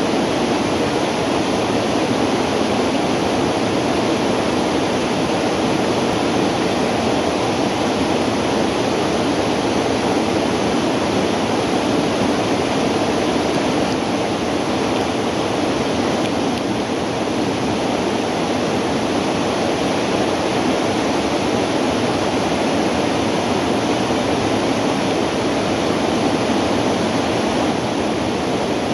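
Steady rush of river water flowing over a riffle.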